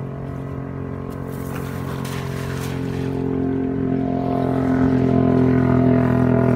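An engine running steadily at an even pitch, growing louder over the last three seconds or so.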